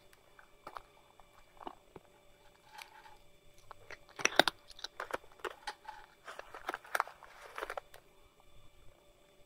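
Brown tabby cat chewing and crunching food: irregular small crunches and mouth clicks, busiest about four seconds in and again around seven seconds in.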